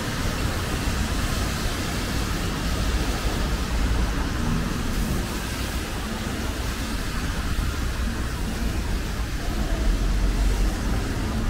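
Rain and city street traffic: a steady hiss with a low rumble underneath, unchanging throughout.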